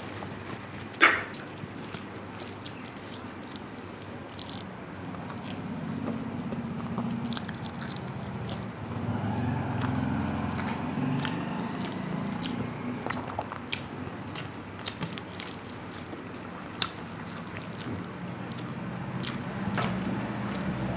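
A person chewing and eating rice and curry close to the microphone: wet mouth sounds and chewing, with many small clicks and a sharp clink about a second in.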